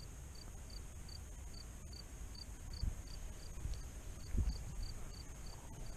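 A cricket chirping faintly and steadily, about two and a half chirps a second, with a couple of soft low thumps midway.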